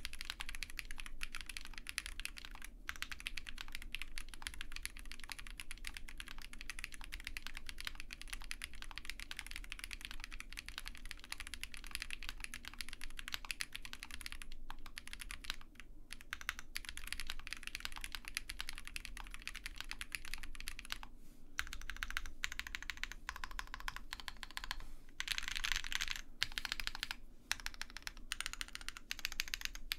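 Typing on a gasket-mounted OwLab Mr Suit TKL mechanical keyboard with lubed Zaku switches, a POM plate with plate foam only, and GMK keycaps: a fast, continuous patter of keystrokes. Near the end it breaks into shorter runs of presses with brief pauses between them.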